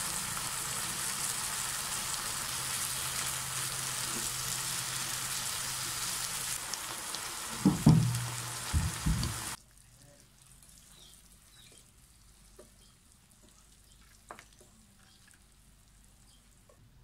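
Beef, broccoli, potato and onion sizzling steadily in a frying pan, with a few dull thumps about eight seconds in. The sizzle cuts off suddenly about halfway through, leaving a quiet stretch with a couple of light clicks.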